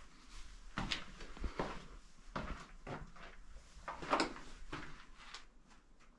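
Footsteps scuffing and crunching on the rocky floor of a narrow cave passage: a series of irregular scrapes and knocks, about one or two a second.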